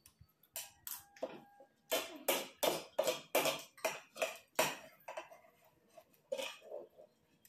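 Metal spoons scraping and clinking against ceramic plates while eating, a quick run of strokes about three a second from about two seconds in, then fainter scattered scrapes.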